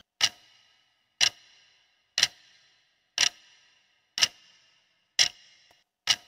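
Clock-ticking sound effect counting down a quiz timer, one sharp tick a second with a short ring after each, seven ticks in all.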